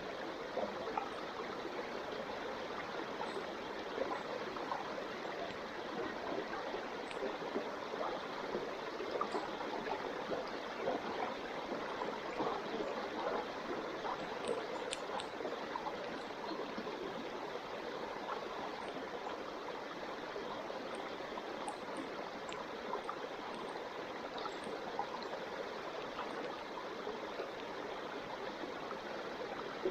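Running water: a steady, even rushing like a stream, with faint short high ticks now and then.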